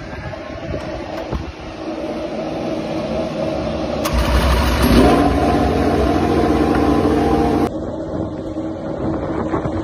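Yamaha YZR-M1 MotoGP bike's inline-four engine running on its stands. It is revved up, with the pitch rising about five seconds in, then drops back abruptly to a steady lower idle near the end.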